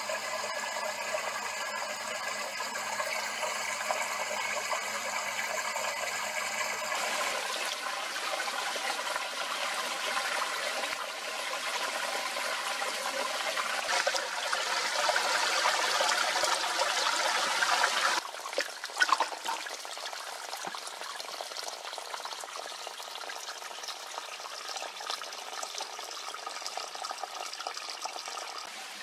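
Water splashing and trickling in a shallow stream pool. It grows louder and then drops suddenly about two-thirds of the way through to a softer, steady trickle, with a couple of brief knocks just after the drop.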